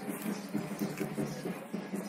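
A calf chewing fresh leafy greens, with irregular crunching and rustling, over a steady low hum.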